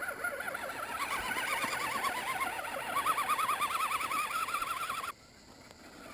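Whine of a 1/10 scale Axial SCX10 RC crawler's electric motor and gears, its pitch wobbling quickly up and down. The pitch drops about a second in, rises and grows louder around three seconds, then cuts off suddenly a little after five seconds.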